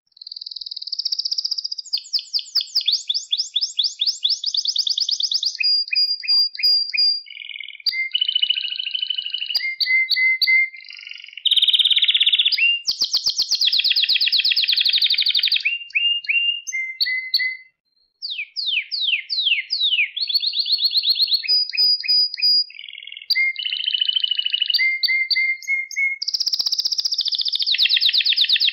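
Male domestic canary singing: a long song of rapid trills and fast-repeated notes, the note type changing from phrase to phrase, some notes sweeping downward, with a brief pause about two-thirds of the way through.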